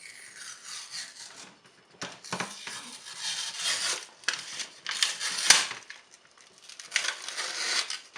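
Paper wrapper being peeled and unwound from a cardboard tube of refrigerated croissant dough: crinkling and tearing in several bursts, with one sharp snap about five and a half seconds in.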